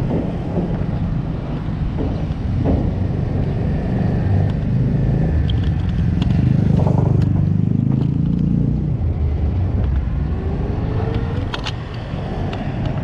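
Motor vehicle engine running with road and traffic noise, growing louder for a couple of seconds around the middle.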